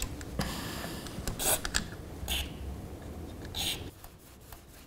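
Aerosol contact cleaner (DeoxIT) hissing in short sprays onto the set's potentiometers to clean them, with rubbing and handling noises from the chassis. The first spray lasts about a second, and a few shorter ones follow.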